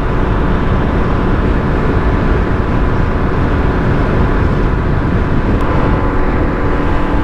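Peugeot Kisbee scooter running flat out at about 75 km/h: a steady engine drone under heavy wind rumble on the microphone.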